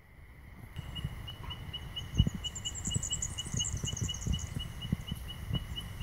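Outdoor wildlife calls: a regular high chirping, about four short chirps a second, begins just under a second in, joined about two seconds in by a burst of higher bird twittering. Low rumbling knocks from wind and handling on the microphone run beneath.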